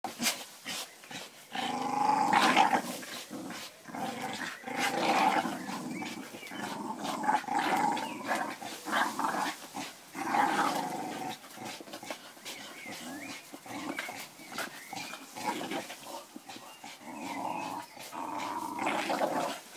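Staffordshire bull terriers growling in play as they bite, tug and hang from a rubber tyre swing. The growls come in several long stretches, with short knocks and scuffs in between.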